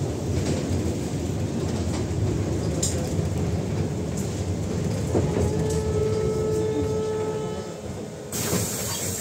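AKSM 321 trolleybus in motion, heard from inside the saloon: a steady low rumble with scattered rattles, and a steady electric whine from the drive for a couple of seconds past the middle. Near the end a sudden hiss starts.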